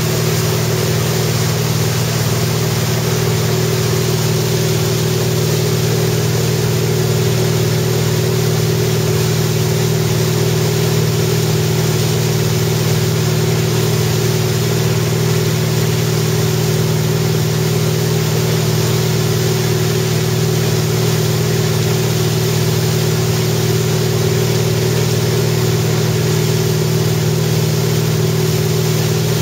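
Wakesurf boat's inboard engine running at a steady speed, a constant unchanging drone, over the rush of the churning wake.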